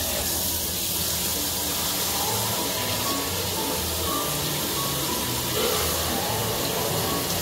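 Background music: a simple melody of short, evenly held notes over a steady hiss.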